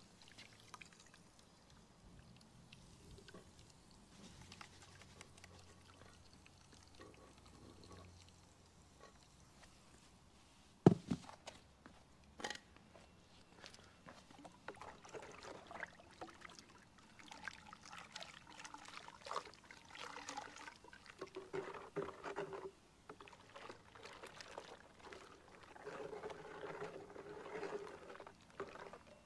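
Granular pool chlorine poured from a plastic jug into a bucket of water, faint at first. A single sharp knock comes about eleven seconds in. Through the second half, water sloshes and churns irregularly as the chlorine is stirred by hand with a plastic tube to dissolve it.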